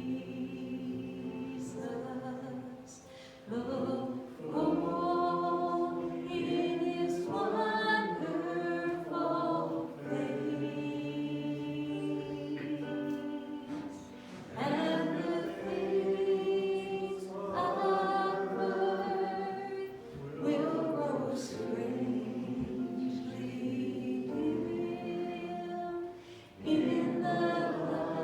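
A congregation singing a hymn together: many voices on long held notes, with short breaks between the phrases.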